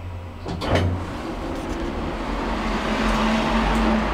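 A lift's car doors opening: a sharp clunk about a second in, then the doors sliding open over a steady door-motor hum that stops near the end.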